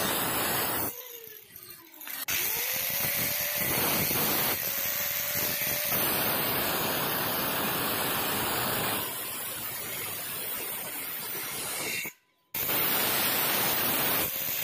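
Angle grinder with a thin cut-off disc cutting a curved notch into the end of a stainless steel railing tube, a loud, harsh grinding hiss. About a second in it is switched off and its whine falls away, then it starts again abruptly and keeps cutting, with a short break near the end.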